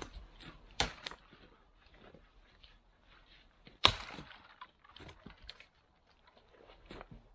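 Dead wood being snapped by hand: sharp cracks of breaking branches, two close together about a second in, the loudest about four seconds in, then a few lighter snaps.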